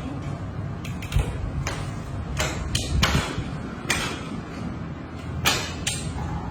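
Honda Win 100 motorcycle being kick-started over and over, each kick a sharp clack as the engine turns over without catching. The engine will not start.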